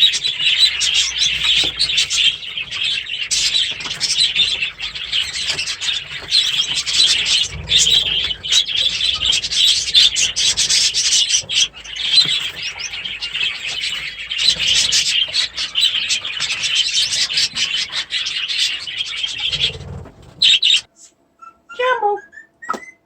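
A flock of cage birds chattering and chirping continuously. Near the end the chatter breaks off and a few separate whistled calls follow, sliding in pitch.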